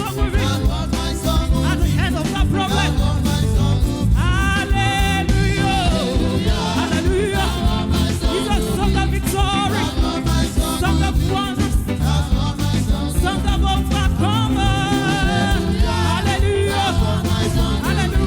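Gospel music with singing: a voice holding wavering sung notes over a steady bass and drum beat.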